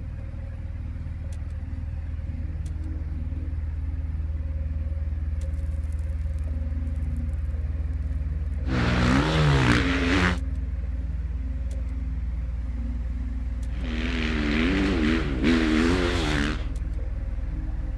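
Sherco enduro dirt bike ridden hard past on a wooded trail twice, each pass a few seconds of engine revving whose pitch rises and falls with the throttle; the second pass is the longer. A steady low drone sits underneath throughout.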